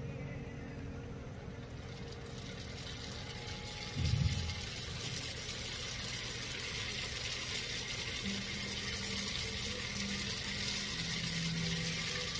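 Crab rangoons being laid into hot oil in a cast iron skillet, the oil sizzling with a fine crackle that builds and grows louder as more go in. A low thump comes about four seconds in.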